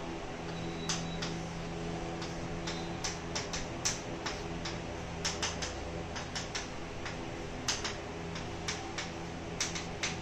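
Chalk writing on a blackboard: irregular sharp taps and clicks, about two or three a second, as each symbol of an equation is written.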